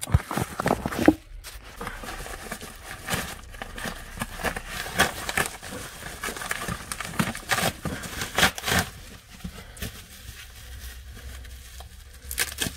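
Hands tearing open a yellow padded paper mailer and crinkling the crumpled packing paper and plastic wrap around the books inside: irregular rustling and crackling.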